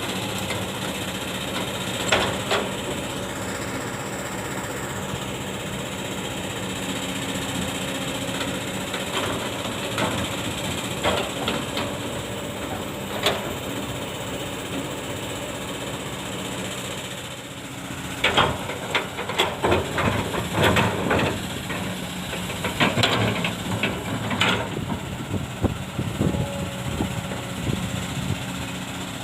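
Kobelco SK200 hydraulic excavator working, its diesel engine running steadily with a hiss, then from a little past halfway a series of sharp metallic clanks and knocks from the machine's bucket and linkage.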